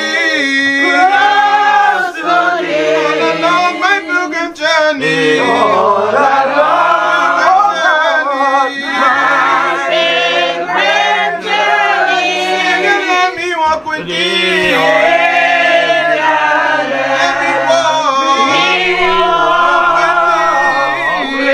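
Church congregation singing a hymn together, men's and women's voices in long held notes.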